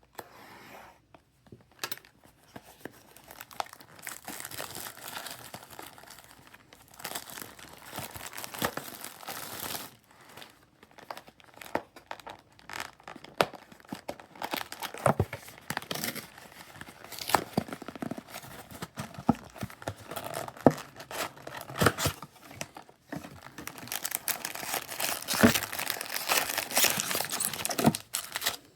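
Foil wrappers of trading-card packs being torn open and crinkled by hand: irregular crackling and rustling with sharp crinkles, denser in a couple of stretches.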